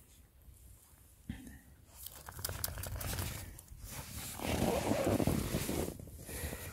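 Snow crunching and rustling as dogs move about in deep snow right beside the microphone. It starts about two seconds in after a quiet moment, with many sharp crackles, and is loudest around five seconds in.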